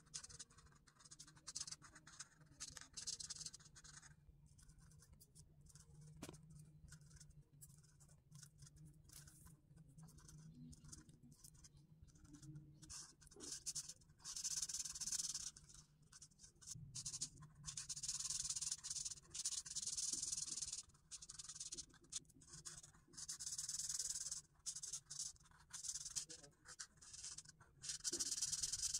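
Felt brush-tip marker scratching across paper in runs of back-and-forth colouring strokes, broken by short pauses and louder in the second half.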